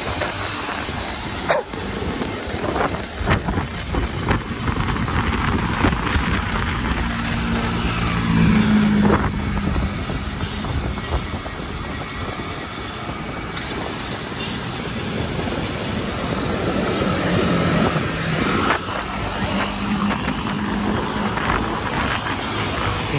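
Wind buffeting the microphone of a camera on a moving road bicycle, over the engines of motorcycles and minibuses in city traffic; a steady engine hum swells about seven seconds in and again near the end.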